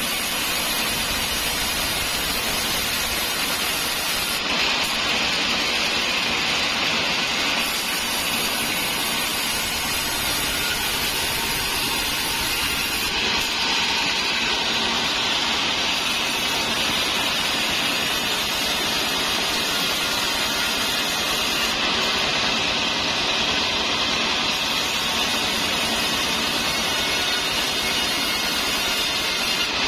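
Large vertical wood band saw running steadily while ripping a trembesi (rain tree) plank lengthwise, with a continuous loud cutting noise.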